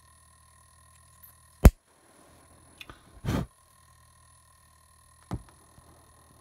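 Several short, sharp clicks and knocks, the loudest about one and a half seconds in, and a brief rushing puff near the middle, over a faint steady high whine and low hum. The click a little over five seconds in is a pocket lighter being struck.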